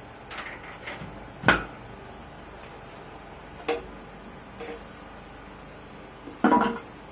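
A few separate knocks and clunks, the loudest about a second and a half in, with a short clatter near the end.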